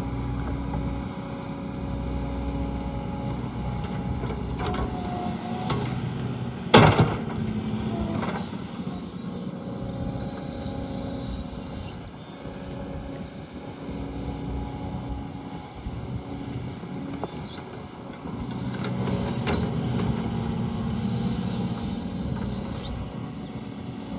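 Can-Am side-by-side's engine running, a little quieter through the middle stretch, with one sharp knock about seven seconds in.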